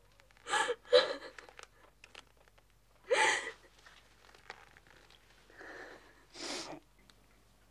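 A woman sobbing: about five short, breathy gasps and sniffs with short pauses between them.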